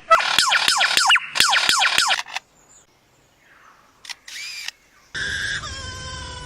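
Lyrebird mimicking a laser gun: a rapid run of falling 'pew' zaps for about two seconds. After a short pause come a camera-shutter-like click and brief whirr, then a steadier noisy, buzzing imitation near the end.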